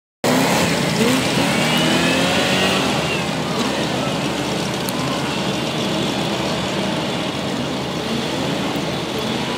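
Tough-truck race vehicle's engine revving hard as it accelerates away across the dirt arena track, its pitch climbing and dropping through the gear changes for the first few seconds, then settling into a steadier drone that grows fainter as it gets farther off.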